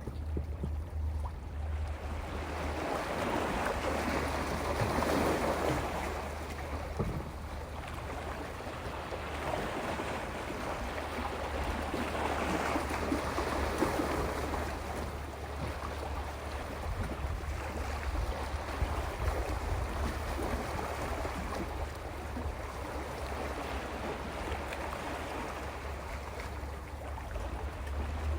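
Sea waves washing over a rocky shore, the surf swelling and easing every few seconds over a steady low rumble.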